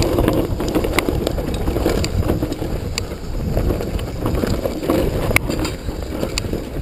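Downhill mountain bike descending a rocky dirt trail: tyres rolling and crunching over dirt and stones, with frequent sharp knocks and rattles from the bike as it hits rocks and roots. Wind rushes over the microphone.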